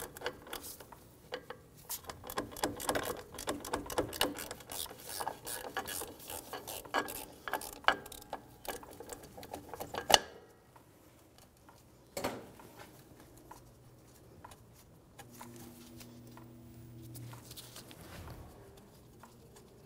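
Hand ratchet clicking rapidly as a socket backs out a short, rusty wheel-cylinder mounting bolt on a drum-brake backing plate. The clicking runs for about ten seconds and then stops, with a single knock a couple of seconds later.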